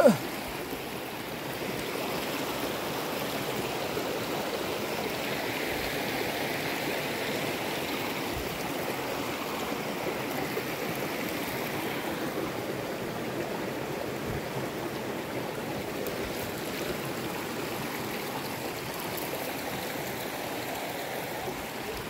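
Shallow creek water running over rocks: a steady, even sound of flowing water.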